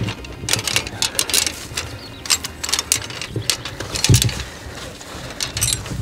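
Steel beaver traps and their chains clicking and rattling irregularly as they are carried and handled, with a low knock about four seconds in.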